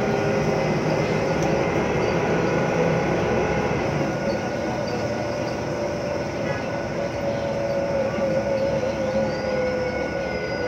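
Daewoo BH115H city bus on the move, heard from inside: the engine running under a loud whine from its Voith automatic gearbox, which wavers in pitch in the second half. A fainter, higher whine rises near the end.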